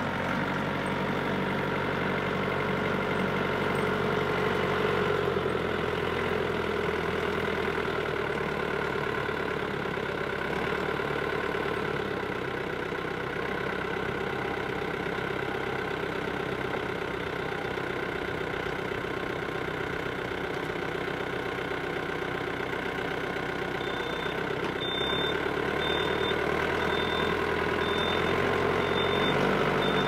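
Yanmar compact tractor's diesel engine running steadily, its pitch shifting slightly as the front-loader grapple carries and sets down a saw log. Near the end a high beep starts repeating about once a second.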